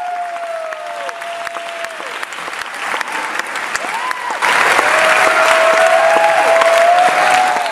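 Concert audience applauding, with long drawn-out vocal cheers over the clapping. The clapping grows louder about four and a half seconds in.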